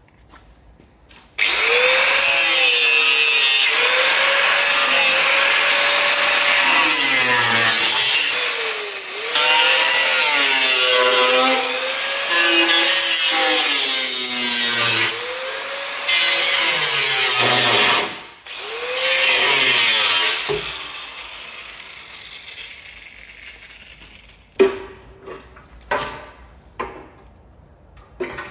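Angle grinder with a cutting disc slicing through the steel chassis leg of an Alfa Romeo GTV. Its pitch sags and recovers as the disc bites, with a few short breaks. It stops about 20 seconds in, and a few sharp metallic knocks follow.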